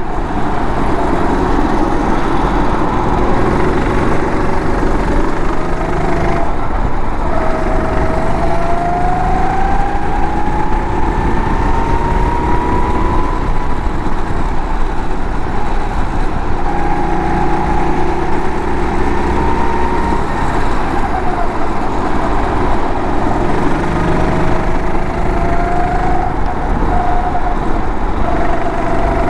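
Go-kart engine running at speed on a circuit, its pitch climbing slowly twice as it accelerates and dropping back in between as the driver lifts for corners, over a steady rushing noise.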